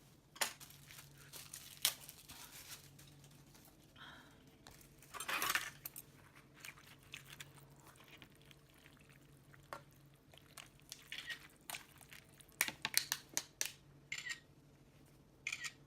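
Plastic food wrapping crinkling and rustling in short bursts, with scattered light clicks and knocks and one longer rustle about five seconds in, over a faint steady hum.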